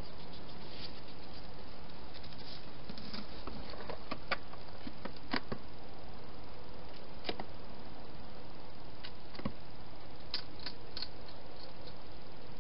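A few scattered sharp clicks and knocks from a hedgehog moving about inside a clear plastic feeding box at its food bowls, over a steady hiss. A small run of clicks comes near the end.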